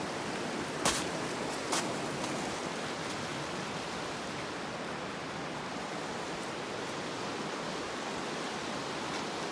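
Steady rushing of running water, even and unbroken, with two short knocks about a second and two seconds in.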